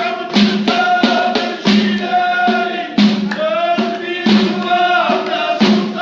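A group of voices singing a devotional praise chant (madih) over hand-percussion beats, about three strikes a second.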